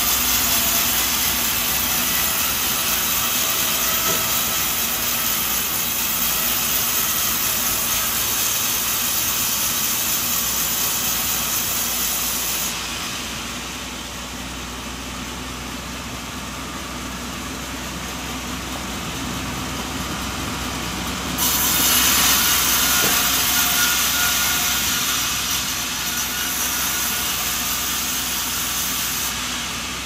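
Sawmill saw running steadily through coconut wood. The sound turns duller for a stretch in the middle, then comes back abruptly and louder.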